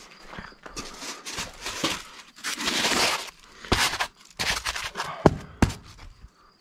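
Scraping and crinkling handling noises with a few sharp clicks, from work on polystyrene insulation boards against a block wall. The longest stretch of scraping comes a little before the middle.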